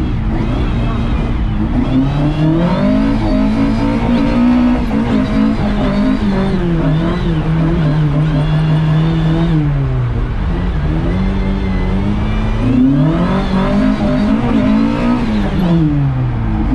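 Lada's four-cylinder engine heard from inside the cabin while drifting on ice: the revs climb and hold high, drop back, then climb and drop again near the end.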